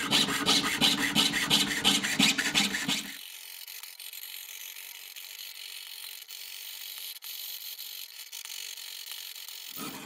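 Jeweler's saw cutting thin brass sheet on a wooden bench pin, in quick, regular rasping strokes. About three seconds in, the sound drops to a quieter thin hiss.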